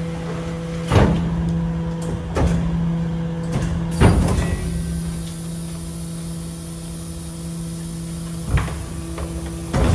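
BYD rear-loader garbage truck's hydraulic bin lifter humming steadily, with sharp metal clunks about a second in, twice more over the next three seconds and once near the end as the wheelie bin is latched and the lifter engages. A faint high whine comes in about four seconds in.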